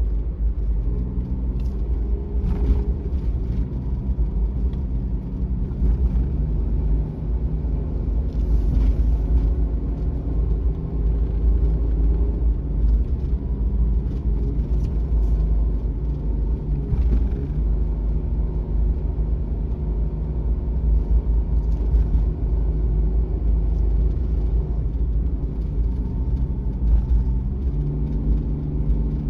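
Suzuki Every kei van's 660 cc three-cylinder engine running with road rumble, heard from inside the cab while driving a mountain road. The engine note shifts pitch a few times as the revs change.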